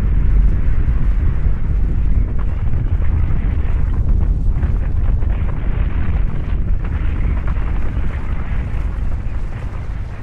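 Avalanche snow pouring down a mountain gully, a continuous deep rumble that eases slightly near the end.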